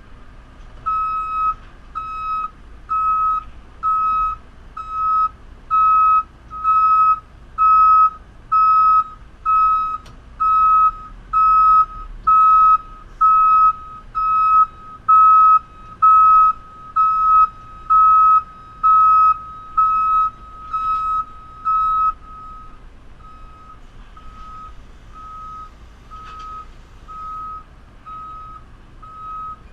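Reversing alarm on a digger: a steady series of single-pitch beeps, a little more than one a second. The beeps are loud for about twenty seconds, then carry on more faintly.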